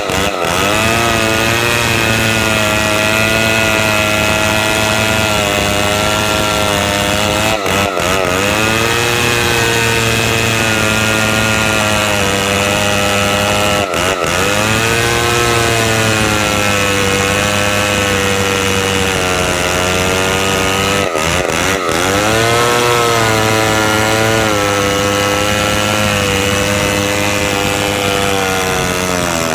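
Two-stroke chainsaw running at high revs while cutting timber into beams. The engine speed dips briefly and recovers about three times.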